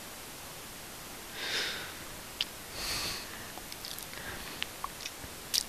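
Two soft sniffs through the nose, about a second and a half apart, over a steady faint hiss, with a few small clicks in the second half.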